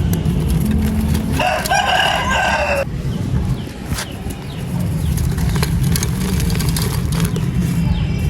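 A rooster crows once, about a second and a half long, starting about a second and a half in. Underneath is a steady low rumble with scattered sharp crackles.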